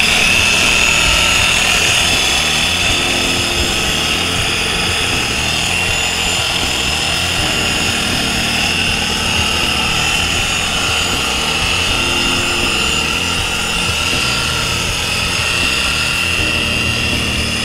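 Random orbital polisher running steadily with its pad on a truck's painted door, working in polishing compound: a steady high motor whine over a rough whirring.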